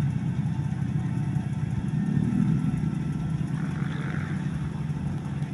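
Riding rice transplanter's engine running steadily while it plants seedlings, a low even hum that grows slightly fainter.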